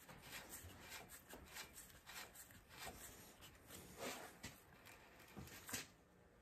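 Near silence with faint clicks and rubbing from hands handling the cylinder parts and tools on a workbench, with a slightly louder knock about four seconds in.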